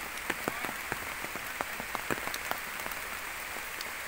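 Steady rain falling, with irregular sharp drops hitting leaves and stone.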